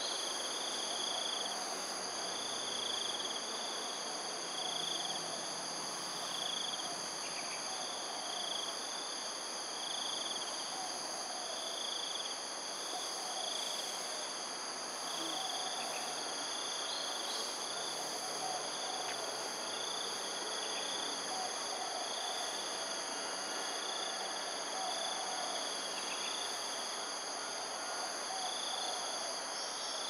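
Insect chorus in waterside vegetation: several steady, high-pitched whines and a chirp that repeats about once a second. A lower call repeats irregularly underneath.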